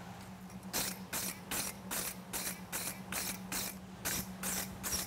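Rapid back-and-forth scraping strokes of a hand tool across the steel of a pair of hot fitting tongs, about two and a half strokes a second, starting just under a second in: the tongs are being cleaned up to take out the rasp marks. A low steady hum runs underneath.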